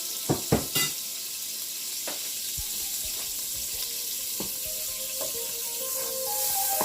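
Food frying in a pan with a steady sizzle. Three sharp knocks come in the first second, and a few lighter knocks follow later.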